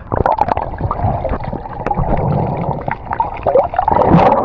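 Swimming-pool water splashing and sloshing, with a dense run of small splashes throughout.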